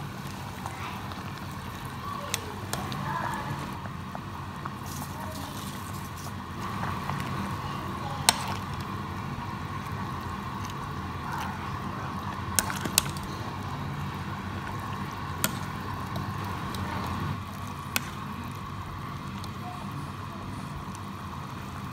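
Pot of spinach soup bubbling on the boil while a metal ladle stirs the leaves, with several sharp clinks of the ladle against the pot.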